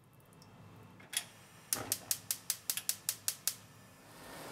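Gas stove burner igniter clicking rapidly, about five clicks a second for nearly two seconds, then the flame catching with a steady hiss as the pan of broth is heated to a boil.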